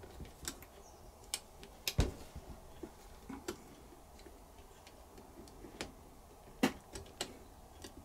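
Irregular small metallic clicks and taps as the steel bobbin carrier and rotating hook of a 1956 Singer 201K sewing machine are worked back into place by hand, with a sharper knock about two seconds in.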